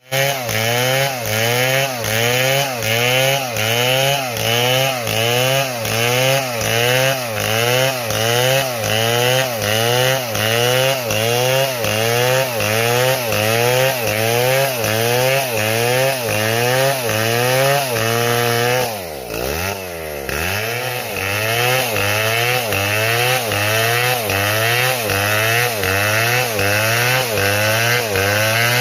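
Stihl MS 720 chainsaw engine running and revving up and down in a steady rhythm, about three swells every two seconds, as it saws wood. About nineteen seconds in, its pitch drops sharply and then climbs back.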